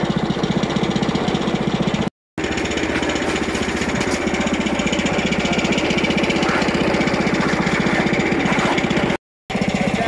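Briggs & Stratton gasoline engine of a Frontier OS23 portable bandsaw mill running steadily at speed, with an even fast pulse. The sound cuts out briefly twice.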